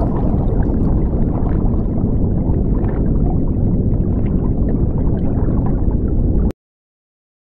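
Underwater sound effect: a loud, steady low rumble with bubbling ticks, cutting off suddenly near the end.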